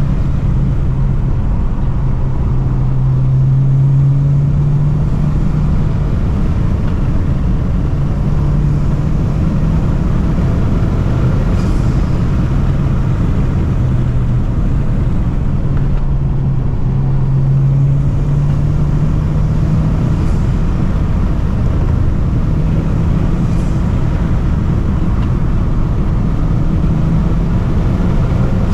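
Honda Civic Type R engine and intake pulling hard, the engine pitch rising and falling repeatedly with the revs, over a steady low rumble.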